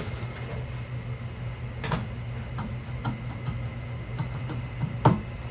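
A few sharp clicks and light taps at irregular intervals, the strongest near the start, about two seconds in, and near the end, over a steady low hum.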